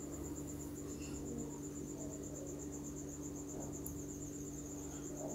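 A faint, steady high-pitched trill pulsing evenly, like an insect, over a low steady hum.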